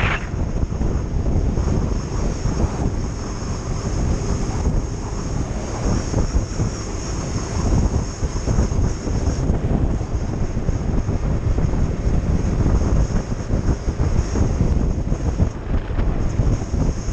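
Wind noise buffeting the microphone while riding a Piaggio Beverly 200 scooter at road speed, with the scooter running steadily underneath.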